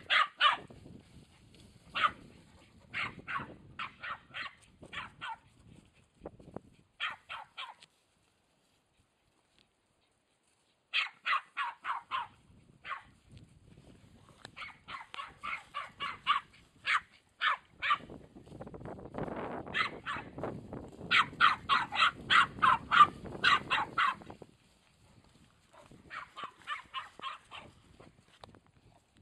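Border Terrier barking in quick runs of sharp yaps, broken by a silence of a few seconds about a third of the way in. A low noise sits under the barking for several seconds past the middle.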